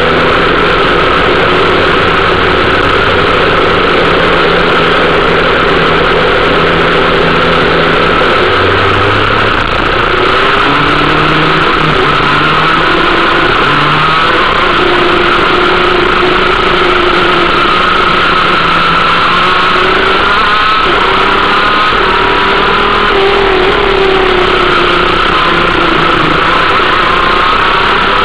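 A 125cc two-stroke kart engine at racing speed, heard close from the kart itself, its pitch repeatedly rising and falling as it accelerates and comes off the throttle through corners. The loudness dips briefly about ten seconds in.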